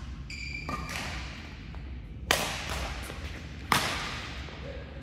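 Badminton rackets hitting a shuttlecock in a rally: two sharp cracks about a second and a half apart, echoing in a large hall. A brief shoe squeak on the court floor and a few lighter taps come near the start.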